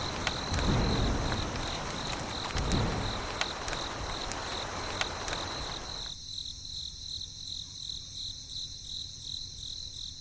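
Cricket chirping in a steady high-pitched pulse, about three chirps a second, over rough background noise with low rumbling swells. The background noise cuts off abruptly about six seconds in, leaving the chirping alone.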